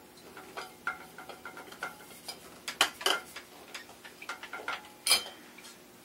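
Phillips screwdriver turning screws in a ceiling fan's metal mounting bracket, tightening the loose bracket to the electrical box: irregular small metallic clicks and scrapes, with a few sharper clicks around the middle and about a second before the end.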